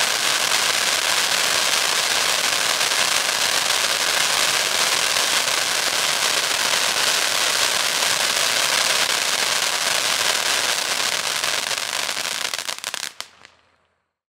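Dominator Insane Intensity 500g firework fountain in its finale: a dense, continuous crackle from its crackling stars. It thins to a few last cracks and dies out about 13 seconds in as the fountain burns out.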